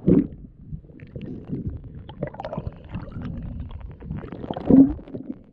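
Muffled underwater rumbling and gurgling heard through a diving camera's housing, with bubbles rising past the lens as the diver comes up through the water. There are two louder surges, one right at the start and one near the end.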